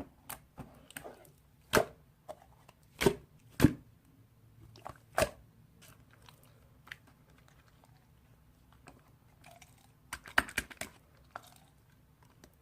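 Slime being squeezed and pressed close to the microphone, giving scattered crisp pops and crunches. The loudest come in the first five seconds, and a quick cluster comes near the end.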